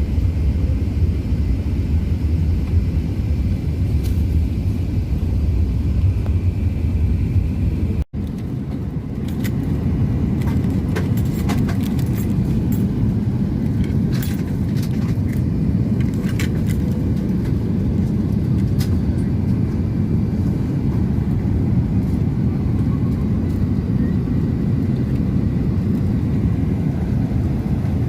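Steady in-flight cabin rumble of an Airbus A380-800, engine and airflow noise heard from the economy cabin. The sound cuts abruptly about 8 seconds in and resumes with a lighter rumble, now with scattered small clicks and clatter.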